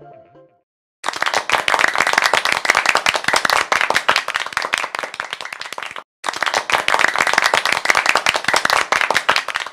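Applause: dense clapping of many hands. It starts about a second in, breaks off for a moment midway, then resumes.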